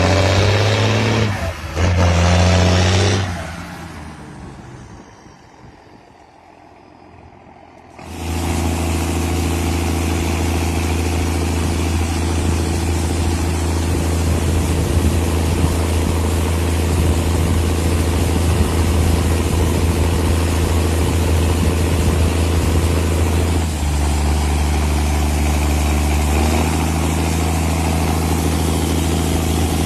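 John Deere tractor engine: loud and shifting in pitch for the first few seconds, fading away, then cutting in loud about eight seconds in and running at a steady speed, its tone dropping slightly about three-quarters of the way through.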